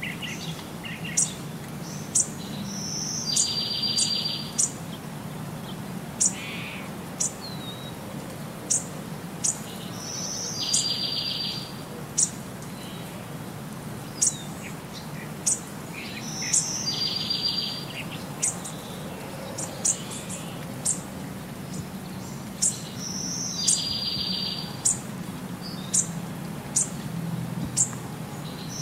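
Birdsong: sharp high chirps about once a second, with the same buzzy trill coming back about every six and a half seconds, over a steady low hum.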